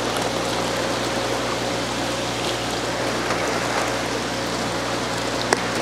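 Water pouring steadily from a PVC pipe manifold into styrofoam shipping boxes, a continuous splashing with a low steady hum beneath it. A single sharp tap near the end.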